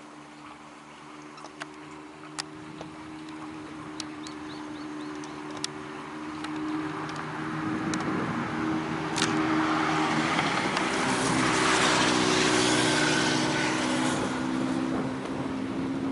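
A car passing by: engine and tyre noise build up, are loudest about three-quarters of the way through, then fade away.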